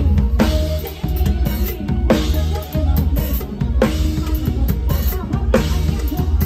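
Drum kit played live with a band, heard close to the kit: busy kick and snare hits over a steady bass and other pitched instruments. Cymbal crashes land about every second and three-quarters, four times.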